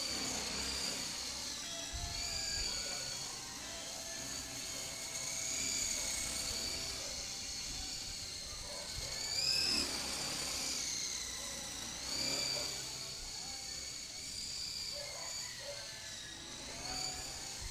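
Coaxial-rotor RC model of the Mars Ingenuity helicopter in fast forward flight. Its motors give a high whine that swings up and down in pitch as it speeds up and slows, loudest about ten seconds in.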